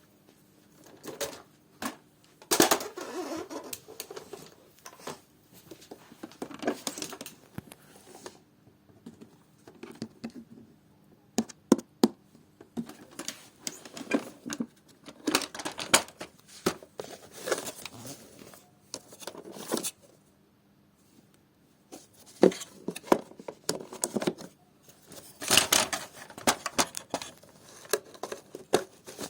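Irregular clicks, knocks and rustling of plastic parts of a vacuum cleaner being handled, coming in clusters with a couple of short pauses.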